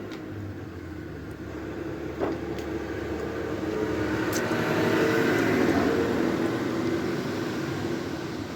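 A motor vehicle passing by: a rumble that swells to its loudest about five or six seconds in and then fades. A sharp click comes a little after two seconds.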